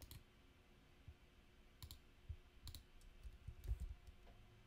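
A few faint, scattered clicks of a computer keyboard and mouse as a command is selected, copied and typed.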